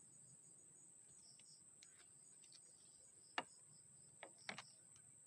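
Near silence with a faint steady high-pitched tone, broken by a few small sharp clicks of hands handling grafting materials: one about three seconds in, then a quick few near the end.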